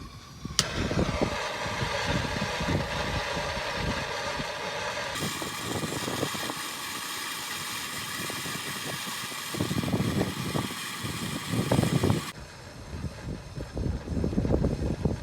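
Handheld gas torch lit with a click about half a second in, then a steady hiss of flame heating a seized shock-absorber bolt to free it; it shuts off abruptly about twelve seconds in.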